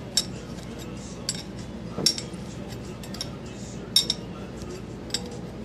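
Sharp metallic clinks about once a second as a wrench hand-cranks the table feed screw of a milling machine geared to a dividing head for helical milling, over a steady low hum.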